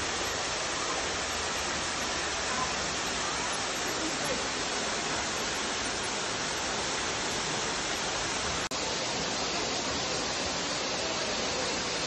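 A steady, even rushing hiss with no pitch, broken once by a split-second dropout about two-thirds of the way through.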